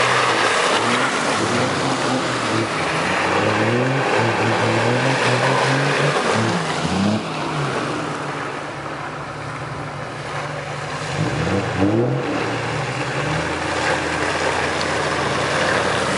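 Off-road SUV engines revving and easing off in low gear as the vehicles drive through a muddy track, with the tyres churning through mud and water. The Toyota FJ Cruiser's V6 pulls away at the start, and another engine revs up as a vehicle comes close near the end.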